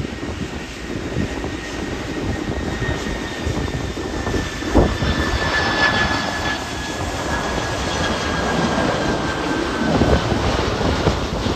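Jet airliner engines passing, with a thin whine that slowly falls in pitch as the aircraft goes by. Wind gusts buffet the microphone under it.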